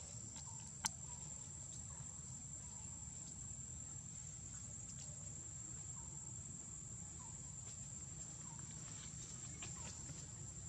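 Steady high-pitched drone of insects over soft outdoor background noise, with a single sharp click about a second in.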